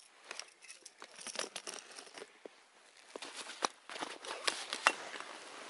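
Rustling with irregular sharp clicks and knocks as a caught pike is handled in gloved hands aboard an inflatable kayak. A steady hiss comes in about two thirds of the way through.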